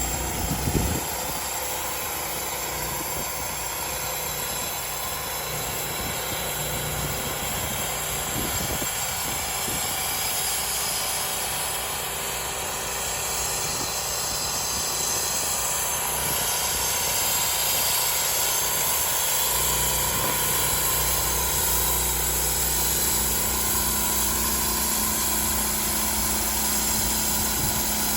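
A homemade sawmill's engine running steadily, with a brief sharp knock about a second in. About two-thirds of the way through the low hum grows stronger and a steady low tone comes in, as the machine's load or speed changes.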